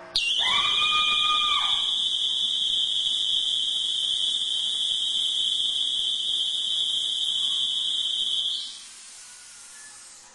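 Loud, piercing, continuous high-pitched electronic alarm tone that starts suddenly and stops after about eight and a half seconds. A second, lower tone sounds along with it for the first second and a half or so.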